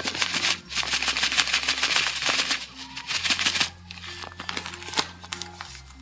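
Thin plastic bag crinkling and rustling as desiccated coconut is shaken out of it, stopping about three and a half seconds in. Soft background music with low sustained notes runs underneath.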